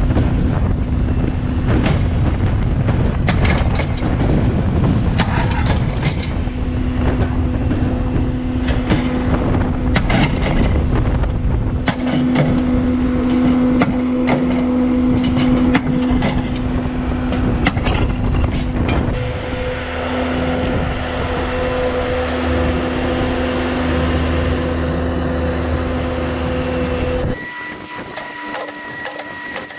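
Machine-powered post pounder driving fence posts into the ground: its engine runs steadily under repeated irregular sharp knocks. About 27 s in, the sound switches abruptly to a quieter, steady hum.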